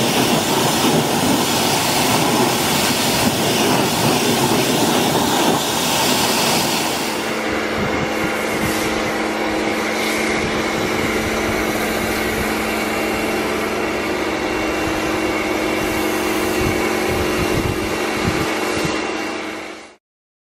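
Pressure washer jet hissing against a car's wheel and wheel arch. About seven seconds in it changes to the pressure washer's motor and pump running with a steady hum under a lighter hiss as a snow foam lance sprays foam onto the car. The sound cuts off abruptly just before the end.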